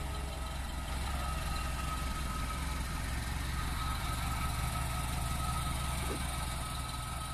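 Vehicle engines idling close by: a steady low hum.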